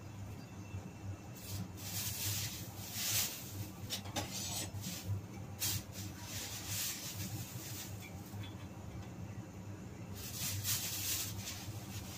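A gas stove burner heating an empty wok: a steady low hum with irregular bursts of hissing, several in the first half and one longer one near the end.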